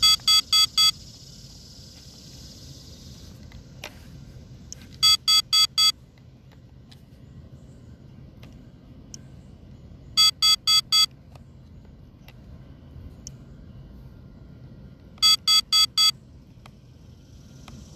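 Low-battery warning for an SG906 Pro drone: sets of four quick electronic beeps, repeating about every five seconds, signalling that the drone's battery is nearly flat.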